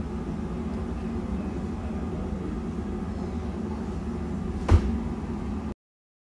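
Steady low machine hum, with one sharp knock near the end, after which the sound cuts off abruptly.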